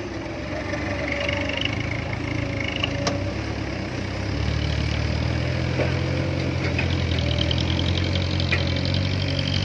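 Loaded dump truck's diesel engine pulling away and climbing a dirt slope, a steady low engine note that grows louder and heavier about halfway through as it works uphill under load.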